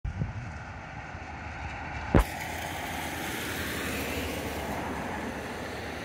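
Steady rushing outdoor background noise, broken by one sharp knock about two seconds in.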